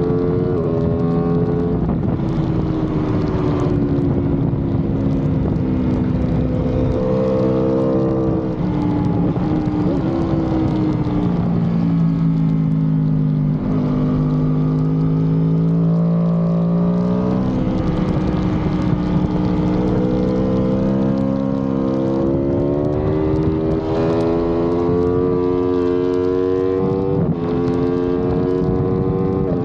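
2018 Aprilia RSV4's 65-degree V4 engine at high revs on a race track, its note climbing and dropping sharply at upshifts several times and sagging as the bike slows for corners, with wind rush over the bike.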